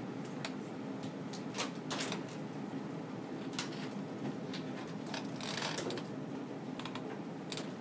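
Classroom bustle of children writing at their desks: scattered taps and clicks of markers and pencils, with a longer rustle or scrape about five and a half seconds in, over a steady low room hum.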